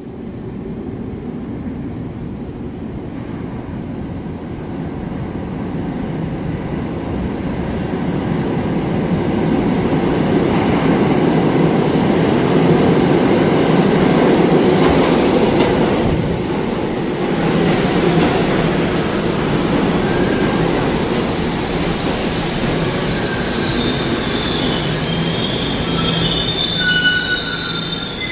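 New York City Subway train running through an underground station, its rumble building over the first ten seconds and then staying loud. High-pitched wheel or brake squeals join in over the last several seconds.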